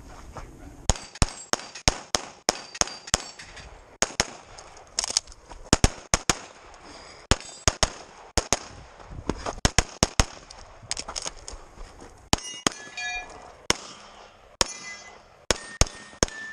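Rapid pistol fire from a CZ 75 Tactical Sports Orange, shots in quick pairs and strings with short breaks between groups, starting about a second in. Some shots are followed by a brief metallic ring.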